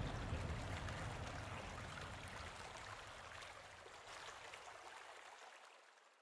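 Flowing water, a steady rush with light trickling, fading out gradually to silence.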